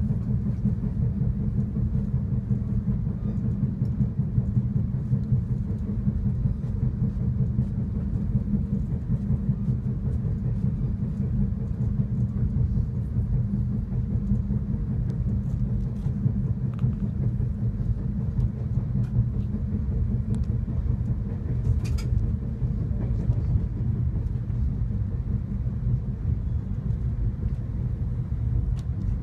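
Steady low rumble of a train running along the track, heard from inside the carriage, with one brief sharp click about three quarters of the way through.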